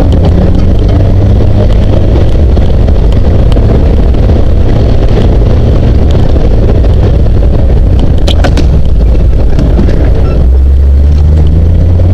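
Jeep CJ7's engine running steadily as it drives along a rough dirt trail, its note changing about ten seconds in, with a few brief rattles about eight seconds in.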